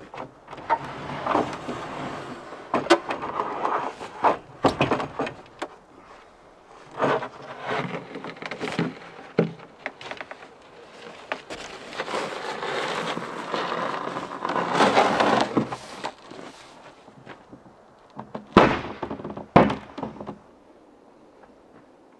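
Large wooden kitchen cabinet being shifted, slid and tipped on a car trailer: stretches of scraping and rubbing with sharp wooden knocks among them, and two heavy thumps near the end.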